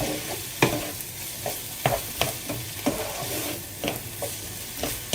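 Chicken, chorizo and vegetables sizzling in a frying pan, with a spoon knocking and scraping in the pan every half second to a second as it is stirred.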